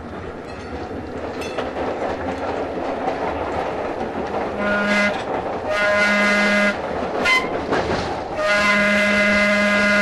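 Pacific Electric 'Hollywood' interurban car's whistle sounding three blasts over the rumble of the moving car: a short blast about halfway through, a longer one just after, and a long blast held near the end. Rail joints clatter now and then beneath it.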